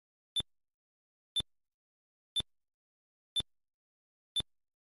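Five short, high electronic blips, one a second, each ticking off one month on a time-lapse counter. No other sound plays between them.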